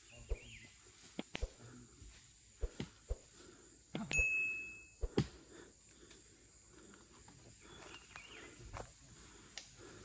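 Footsteps crunching through dry rainforest leaf litter, with twigs snapping at irregular intervals as people walk. A short, high, steady whistle sounds about four seconds in, over a faint steady high hum.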